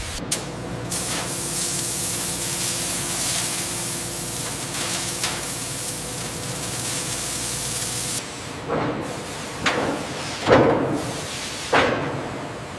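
Steady hiss of a CNC laser cutter cutting steel plate and throwing sparks, stopping about eight seconds in. Four short bursts of noise follow, each falling in pitch, the third the loudest.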